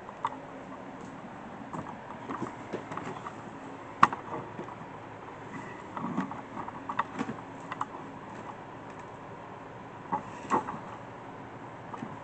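Handling noise as a phone camera is moved and set in place: scattered clicks, knocks and rustles, with a sharp knock about four seconds in and another about ten and a half seconds in, over a steady room hum.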